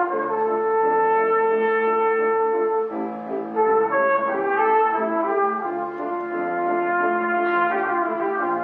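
Trumpet playing a melody of long held notes, with a grand piano accompanying in chords.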